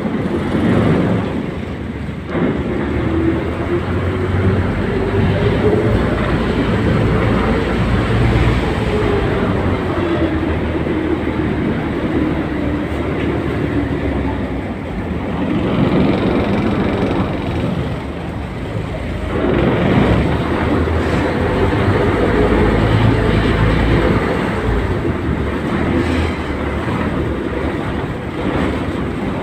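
River ferry's engine running loudly and steadily, with a tone that drifts up and down in pitch and two short dips in level.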